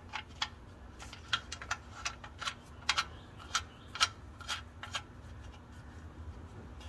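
Light, sharp metal clicks, irregular at a few a second, as the oil drain plug is run back into the oil pan of a 2019 Nissan Frontier; they stop about five seconds in.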